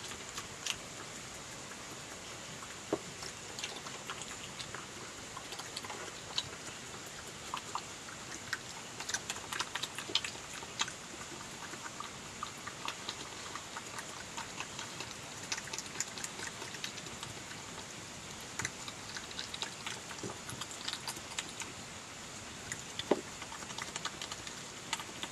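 European badger eating chips: irregular quick clicks of chewing and biting at close range, over a steady hiss.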